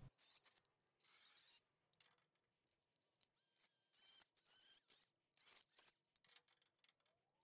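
Small cordless rotary tool with a cut-off wheel notching a sheet-steel repair panel: faint, short high-pitched whining bursts with gaps between them, the pitch wavering as the wheel bites into the metal.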